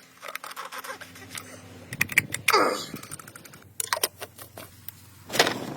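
Scattered light clicks and taps, clustered about two seconds in and again about four seconds in, with a short swishing sound between them.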